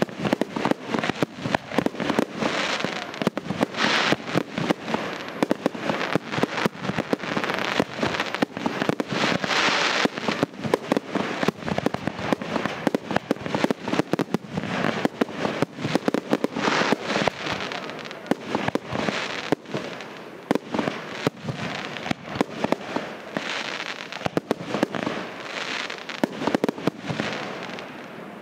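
Fireworks finale: a dense, unbroken barrage of aerial shell bursts, several bangs a second overlapping one another over a continuous crackling haze.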